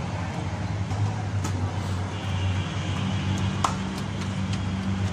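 Street food stall ambience: a steady low hum under a haze of noise, with a few sharp clicks and one tap with a short ring a little past halfway.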